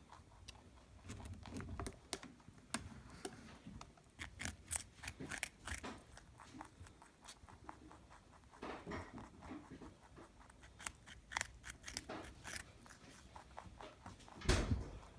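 Rabbit crunching and chewing a raw carrot: many quick, crisp crunches in irregular bursts, with a loud thump near the end.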